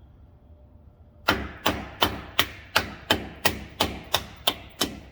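Hammer striking about eleven times in a steady run, roughly three sharp blows a second, driving a solid axle bushing into the Ford 8.8 rear axle housing's mount until it seats.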